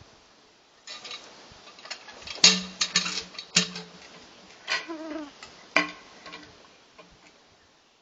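The steel hook and hinge of a log-rolling hook clanking and knocking as it bites into and levers a big peeled spruce log, the log thudding as it shifts. A run of irregular sharp knocks, loudest about two and a half seconds in.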